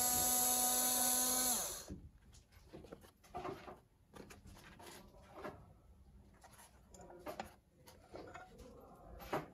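Cordless electric screwdriver running steadily as it backs out a cover screw on a QHY CFW3L filter wheel, winding down and stopping about two seconds in. After that come light clicks and knocks of screws and parts being handled.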